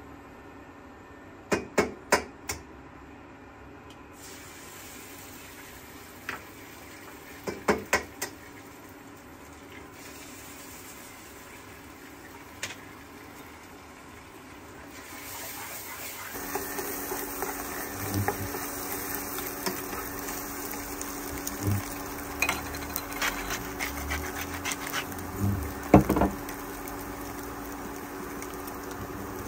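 A few quick runs of sharp taps, then from about halfway the steady sizzle of scrambled eggs frying in a non-stick frying pan on an induction hob, with a spatula scraping and knocking against the pan now and then.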